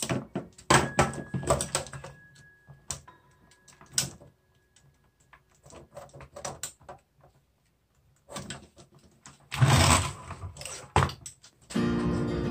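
Scattered clicks and knocks of hard plastic parts and a screwdriver being handled while a robot vacuum's bumper and sensor ring are taken off, with a louder noise lasting about half a second around ten seconds in. Acoustic guitar music starts near the end.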